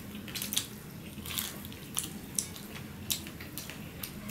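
Close-up eating sounds of rice and curry eaten by hand: short, irregular, moist smacks and squishes from chewing and from fingers mixing rice, a few to the second.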